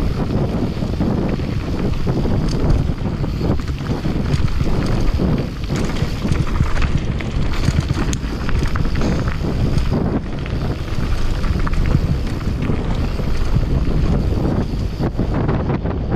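Wind buffeting the microphone of a mountain bike ridden fast downhill, with the tyres rolling over dirt and rock and frequent short clicks and rattles from the bike.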